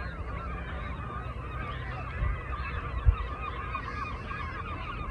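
A flock of geese honking, many calls overlapping continuously, over a steady low rumble, with a single thump about three seconds in.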